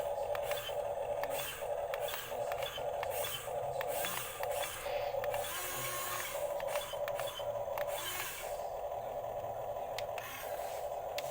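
Small electric motors and gearboxes of a radio-controlled toy construction vehicle whining steadily, with sharp plastic clicks and scraping as it moves and works.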